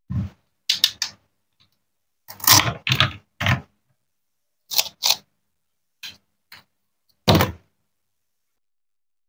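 Plastic toy knife and toy fruit knocking and clacking on a wooden cutting board as a play strawberry is cut apart and the knife is put down: about eleven short, crisp knocks, with a slightly longer, noisier sound about two and a half seconds in.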